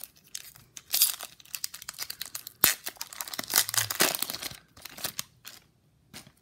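Foil wrapper of a Topps baseball card pack being torn open and crinkled by hand: a run of sharp crackling tears with one loud snap a little under three seconds in.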